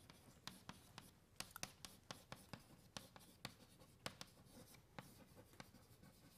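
Chalk writing on a blackboard: faint, irregular taps and short scratches as words are chalked up.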